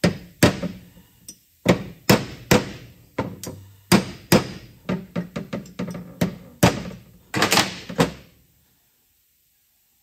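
Hammer striking a small punch to drive a crankshaft oil seal into a Briggs & Stratton engine's aluminium sump cover: about twenty sharp metal taps at an uneven pace, easing the seal in evenly. The tapping stops about eight seconds in.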